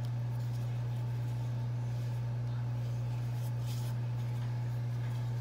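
A steady low hum, with faint soft rustles of thin phyllo pastry sheets being folded by hand, about two and four seconds in.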